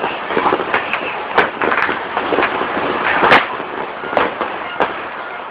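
Fireworks and firecrackers going off: a steady crackle with sharp bangs scattered through, the loudest about three seconds in.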